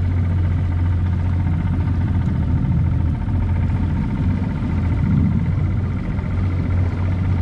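Small skiff's motor running steadily under way, a constant low hum with a rush of wind and water over it.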